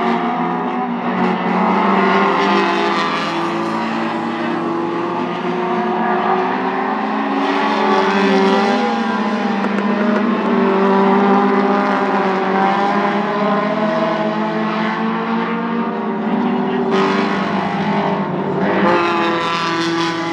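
Several mini stock race cars running laps together, their engine notes rising and falling as they circle and pass. A louder, brighter pass comes near the end.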